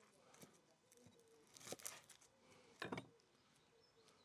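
Near silence, with a few faint short clicks from a knife trimming shallots.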